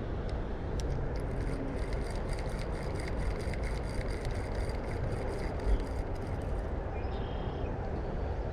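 Fast creek water running over rapids, a steady rushing noise with a low rumble, the stream high and swift after heavy rain. Through the middle a faint quick ticking, about four ticks a second, sounds over it.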